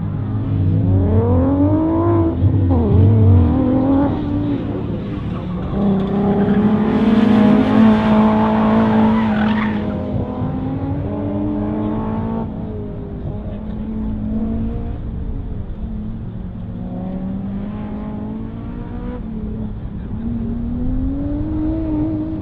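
Sports car engine revving hard while being driven through an autocross cone course, pitch climbing and falling as it accelerates and slows. Tires squeal for a few seconds about seven seconds in.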